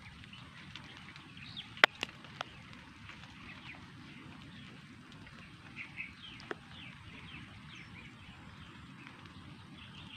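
Flock of small birds chirping, many short falling calls scattered throughout. A sharp click about two seconds in is the loudest sound, followed by a few fainter clicks.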